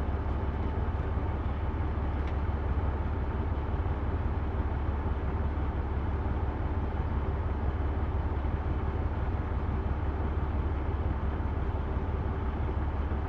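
Tractor-trailer's diesel engine idling: a steady low hum that does not change.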